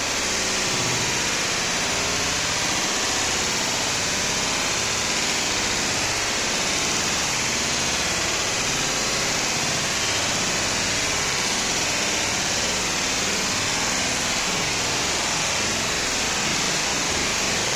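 Steady rain falling: an even hiss with no pitch that holds one level throughout.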